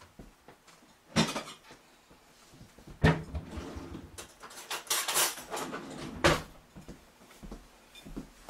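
Kitchen knocks and clatter of dishes as a plate is fetched and handled: a few separate clunks, the loudest about three seconds in and just after six seconds, with a short rattle in between.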